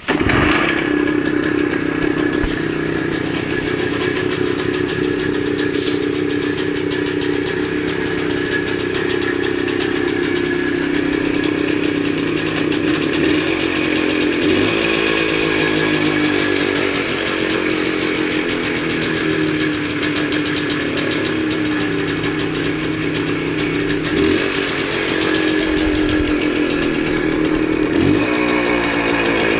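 Minsk 125 motorcycle's single-cylinder two-stroke engine catching abruptly and running steadily, with short blips of the throttle about halfway through and twice near the end.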